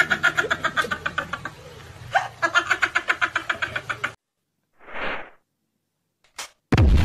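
Cartoon laughing sound effect, rapid pulses of laughter for about four seconds. After a pause come a short hiss and a click, and a loud explosion effect begins just before the end.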